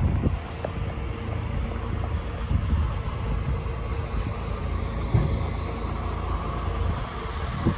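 Steady engine idling under a low rumble of wind buffeting the microphone.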